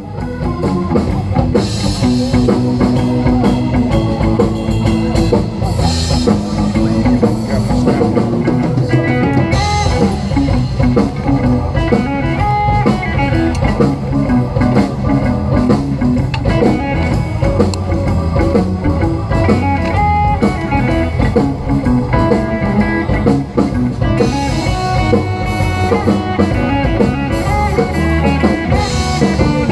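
Background music with a steady beat, coming in abruptly at the start.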